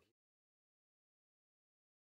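Total silence: the soundtrack has ended.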